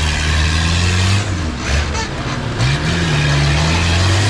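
Off-road prototype 4x4 buggy's engine revving hard up and down under load as its wheels spin and churn through deep mud, with a rising rev about two-thirds of the way through.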